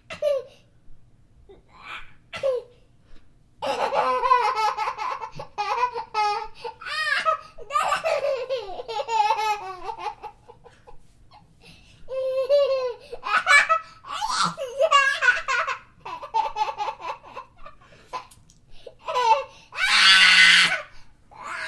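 Babies laughing in several bouts of giggling and laughter, with short pauses between them. A loud, noisy burst about a second long comes near the end.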